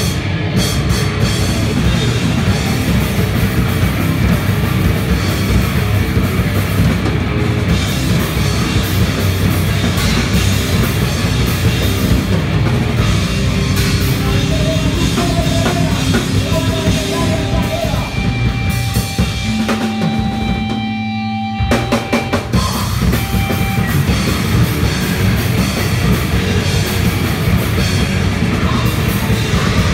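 Grindcore band playing live: fast, loud drumming under heavily distorted electric guitar. About two-thirds of the way through, the drums drop out briefly, leaving a few held guitar notes ringing. Then the full band comes back in.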